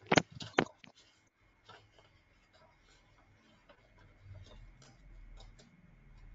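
A few sharp clicks in the first second, then faint, irregular ticking over a low hum.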